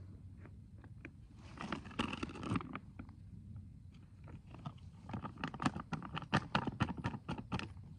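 Close crunching and crackling of someone moving about and handling gear among dry leaves, with a denser patch near two seconds in and a quick run of sharp crackles in the second half.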